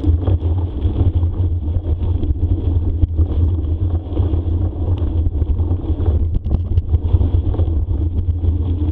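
Steady low rumble from a bicycle moving at speed on a trail, with wind on the microphone and tyre and frame noise, plus scattered short knocks and rattles.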